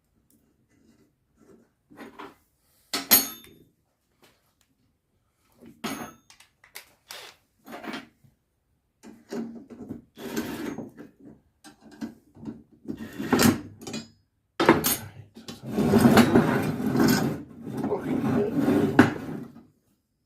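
Steel parts and tools being handled during a repair: scattered knocks and clanks, then a couple of seconds of continuous rattling and scraping near the end.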